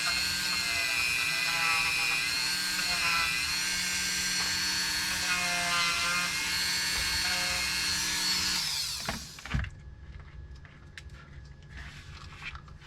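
Dremel rotary tool running at high speed and grinding away a portion of the prop, its pitch wavering as the bit bites. About nine seconds in it is switched off and winds down, followed by a few light handling taps.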